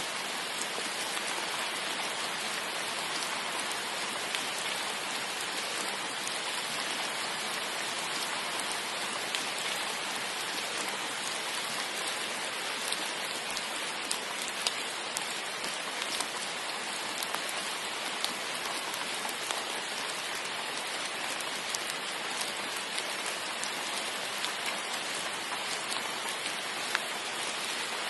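Steady rain falling, an even hiss with scattered individual drops ticking throughout.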